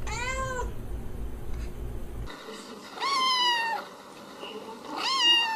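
A calico cat meows once, its pitch rising and falling. Then a young ginger-and-white kitten gives two higher-pitched meows about two seconds apart, the second shorter and louder.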